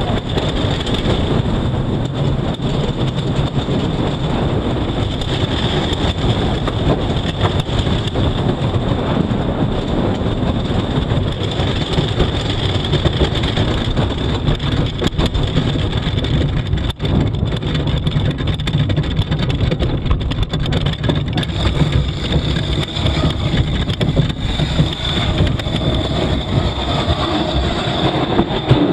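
A bobsled running down an ice track: the runners rumble and hiss over the ice, and wind rushes past the helmet-mounted microphone. The noise is loud and steady while the sled slows from high speed.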